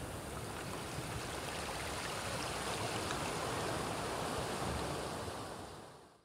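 Ocean surf: a shallow sheet of foamy water rushing over the sand, the rush swelling in the middle and fading out near the end.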